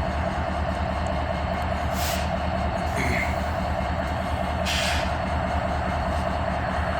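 Diesel freight locomotives, an EMD SD70ACe leading GE ES44s, running steadily as the train starts up: a constant low rumble with a steady whine on top. Two short hisses come about two and five seconds in.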